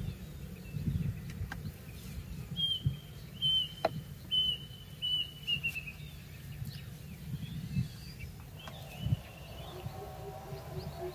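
A bird calling: a series of about five short, clear whistled notes, evenly spaced, the last ones sliding down in pitch, over uneven low background noise.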